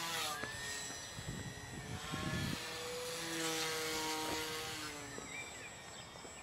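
Parkzone Ultra Micro Beast biplane's small electric motor and propeller whining in flight, the pitch falling, holding, then shifting again. Gusts of wind buffet the microphone.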